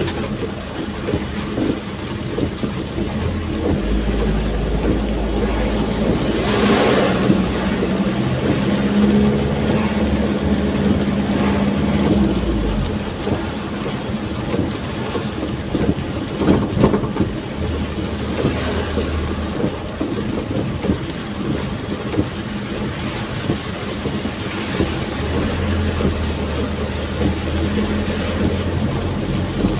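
Truck cab on the move in rain: the engine runs with a steady low hum under the hiss of rain and wet tyres on the road, with a few louder swishes along the way.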